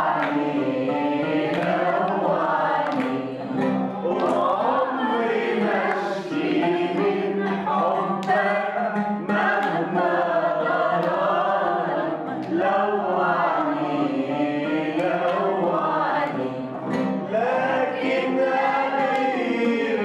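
A group of women singing together, with handclaps keeping time.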